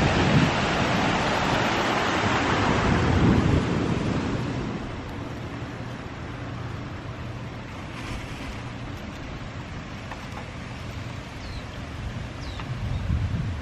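A plaza fountain's jets splashing, mixed with wind on the microphone as a bicycle rolls past. The splashing fades after about four seconds to a quieter steady rush of wind and rolling, with a few short high chirps near the end.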